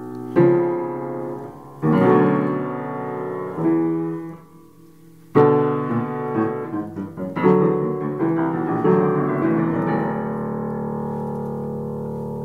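Solo piano playing a slow piece of struck chords, with a brief quiet spell about four seconds in, then a quicker run of notes, ending on a chord left to ring and slowly fade.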